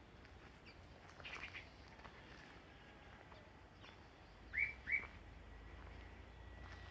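Wild songbirds chirping faintly, with two short, louder chirps in quick succession a little past the middle.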